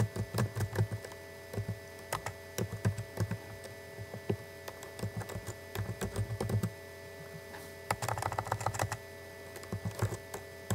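Computer keyboard typing: keys clicking in short quick runs with brief pauses between, as a username and then a password are entered. A faint steady hum lies underneath.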